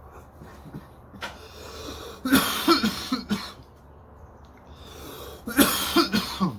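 A man coughing hard in two fits, a string of harsh coughs about two seconds in and another near the end, after inhaling smoke from a bong hit.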